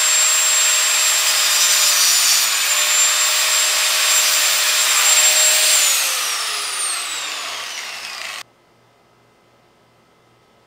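Angle grinder with a cut-off disc running at full speed, cutting the porch swing's hanging chain to length, with a steady high whine. About six seconds in its whine falls as the disc spins down, and the sound stops suddenly about two seconds later.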